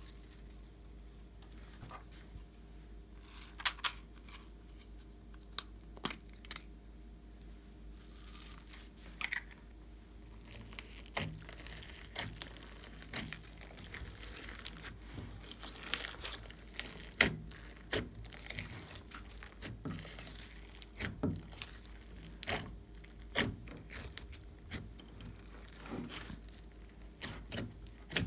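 Hands pressing and kneading glossy slime loaded with foam beads, sequins and glitter: sticky crackling, popping and tearing sounds. The pops are sparse at first and come much more often from about eleven seconds in, as the toppings are worked in.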